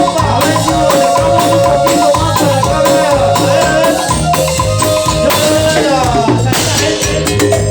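Instrumental passage of chichera dance music from a band: a melodic lead line over a steady beat with shaker-style percussion.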